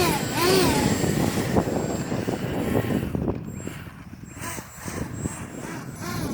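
Electric ducted fan of a Freewing F/A-18 model jet whining, its pitch rising and falling, over a rushing hiss of wind on the microphone.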